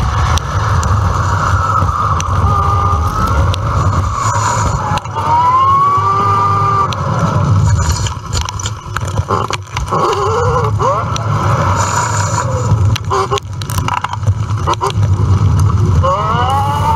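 Wind buffeting the microphone of a bike-mounted action camera during an electric bike ride, a steady low rumble, with several short whines that rise and fall in pitch and a few light clicks.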